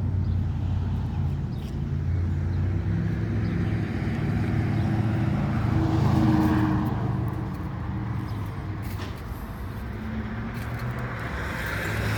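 Dodge Challenger's V6 engine idling steadily through a straight-piped exhaust.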